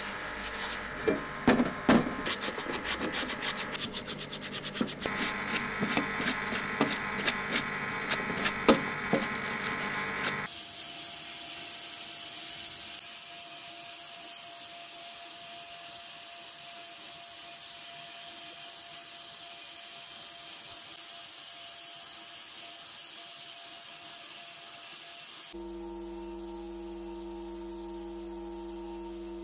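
Rapid rubbing strokes on a workpiece for about ten seconds, with a few sharper hits, then a steady hiss, and near the end a steady hum.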